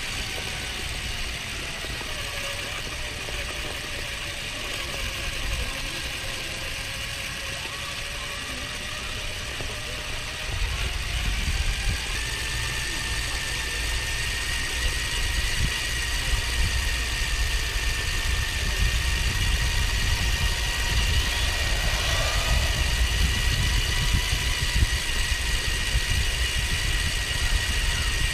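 Car engine and road rumble heard from inside the cabin, with faint whining tones that slowly shift in pitch. The rumble gets louder about ten seconds in, as the car picks up speed.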